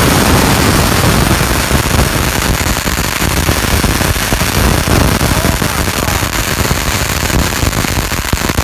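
Wiseguy Fireworks All-in-One Eruption firework fountain in full eruption: a loud, dense, unbroken barrage of crackling pops from its shower of crackling sparks.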